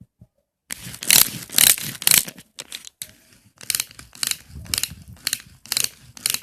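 Toy car's gear mechanism rasping and clicking in short repeated bursts, about two a second, starting after a brief silence.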